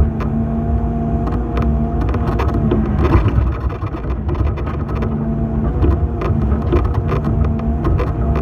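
Excavator's diesel engine running with a steady hydraulic whine that fades out about two and a half seconds in and returns later, over scattered clanks and rattles.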